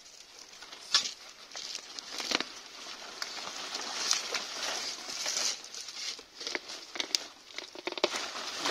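Sprouted coconut saplings being dug out of dry, hard soil with a long digging bar: irregular scraping and crumbling of dry earth, rustling of dry husks and fronds, and a few sharp knocks as the bar strikes.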